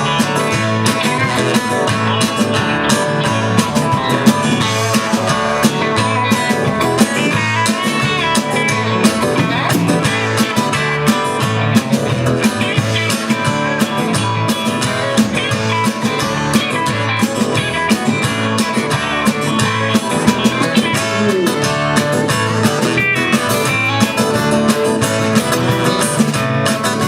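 Live band playing an instrumental break in a country-rock song, guitar over a steady drum-kit beat.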